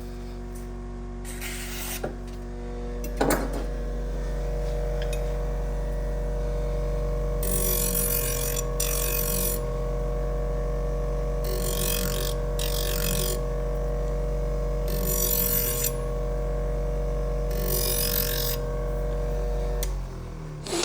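Powered buffer spinning a hard felt wheel charged with white compound, with a kitchen knife's edge drawn across it in short scraping passes, mostly in pairs, while the motor hums steadily. The passes deburr the freshly sharpened edge, and the motor shuts off near the end.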